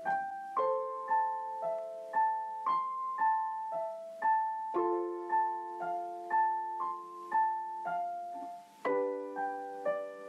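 Solo piano music: a slow, gentle melody of single notes, about two a second, over held chords in the lower register.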